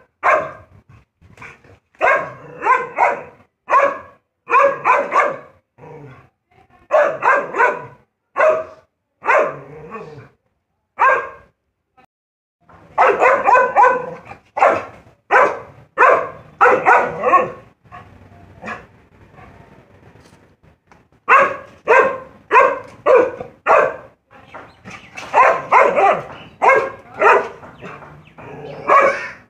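A pet dog barking at a cat through a gate, over and over in runs of several barks, with pauses of a few seconds now and then.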